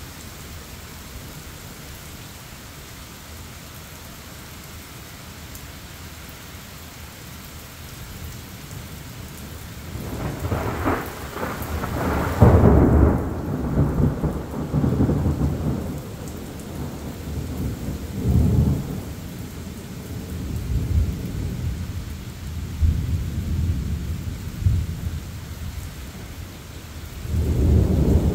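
Steady rain hissing, then thunder. A peal begins about ten seconds in, its loudest crack comes a couple of seconds later, and it rumbles on in rolling waves for over ten seconds. Another peal builds near the end.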